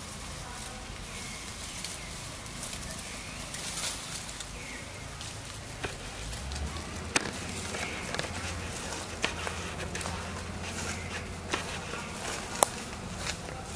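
Crinkling and crackling of a foil snack wrapper handled by a macaque. About six seconds in it gives way to rustling and steps through dry leaf litter and undergrowth, with a low rumble and a few sharp snaps or clicks.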